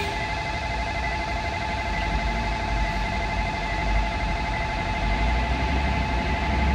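Level crossing warning bell ringing steadily, over the low rumble of road traffic that swells twice.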